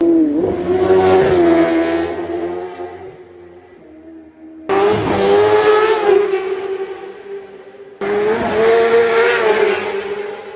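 Racing motorcycles at full speed on a road course, engines screaming at high revs. Three passes follow one another, each starting loud and fading away.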